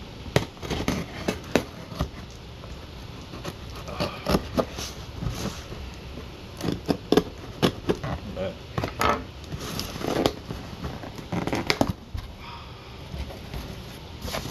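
Cardboard shipping box being cut open with a knife and pulled apart by hand: a scattered run of scraping and crackling of packing tape and cardboard, with sharp clicks and knocks.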